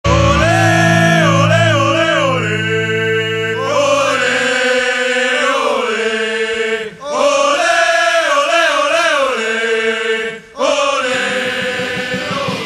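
Music led by voices chanting in unison, over a low sustained drone for the first few seconds. The sound drops out briefly twice, about seven and ten and a half seconds in.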